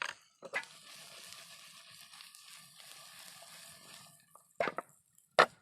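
Mushrooms, onions and button potatoes sizzling in a frying pan as a steady hiss that fades out about four seconds in, followed by two sharp knocks near the end.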